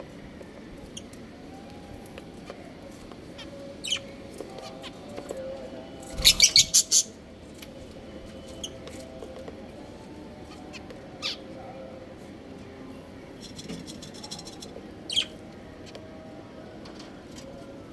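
A flock of pet budgerigars chirping: scattered sharp single calls, a short loud run of about five quick chirps near the middle, and a brief chatter later, over a faint background warble.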